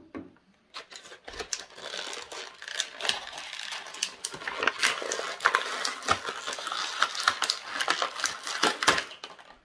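Thin clear plastic bag crinkling and crackling as hands work at it to open it, a dense run of small crackles that starts about a second in and stops just before the end.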